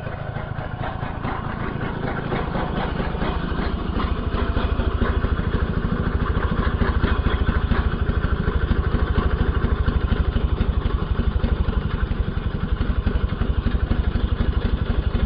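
Stihl HS45 hedge trimmer's two-stroke engine running with a rapid, even pulse. It grows louder a few seconds in, then holds steady.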